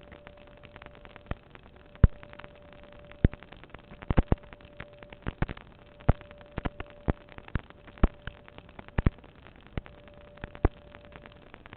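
Strange sharp pops, irregularly spaced at roughly one to three a second, some in quick pairs, over a faint steady hum.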